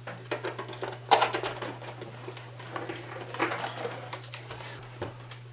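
Scattered handling clicks and knocks of a monitor and its cables being handled on a workbench, with a sharper knock about a second in, over a steady low electrical hum.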